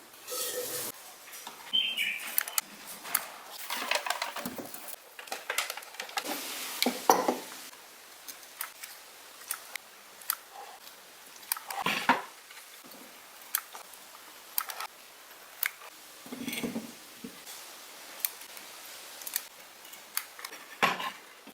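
Scattered clicks, taps and short scrapes of small hard objects being handled, with a few louder knocks and scrapes.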